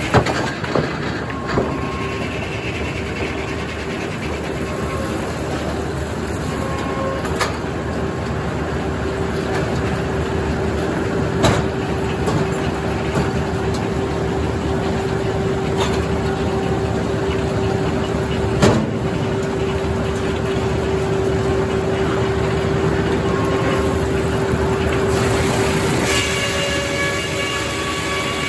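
Circular sawmill running and sawing poplar logs: a steady mechanical drone with a held tone, broken by a few sharp knocks. A high ringing comes in near the end.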